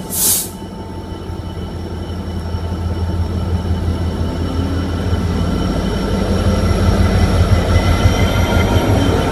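Class 66 diesel locomotive's two-stroke V12 EMD engine running as it pulls away and passes close by, growing steadily louder. A brief loud hiss sounds about a third of a second in.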